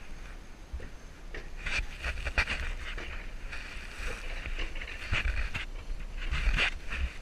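Alpine coaster sled running down its steel rail track: a low rumble and hiss of the wheels, with runs of sharp clacks and rattles, thickest about two seconds in and again near the end.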